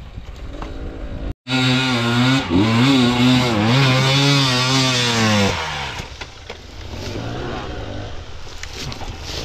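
Enduro dirt bike engine revving hard on a steep, loose climb, its pitch wavering up and down with the throttle for about four seconds. It then drops back to a lower, quieter running.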